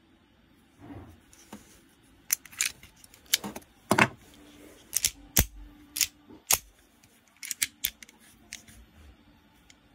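Astra Cub .22 Short pocket pistol handled by hand: a string of sharp, irregular metallic clicks and clacks from its small steel parts being worked, over a dozen in all, loudest in the middle.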